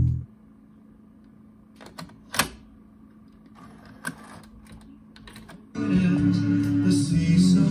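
Music cuts off, then a few sharp clicks of a Sony TC-WR97ES cassette deck's transport buttons being pressed and its mechanism engaging, over a faint steady hum. About two-thirds of the way in, music from the playing tape starts up.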